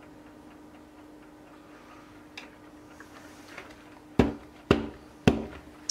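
Three heavy knocks about half a second apart near the end, the silicone loaf mould of soap batter being knocked against the table, with a few faint clicks before them. A steady low hum runs underneath.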